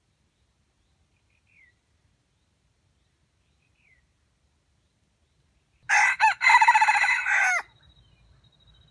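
Red junglefowl rooster crowing once, a short crow of under two seconds that starts about six seconds in, breaks briefly near its start and cuts off abruptly. Two faint short chirps come before it.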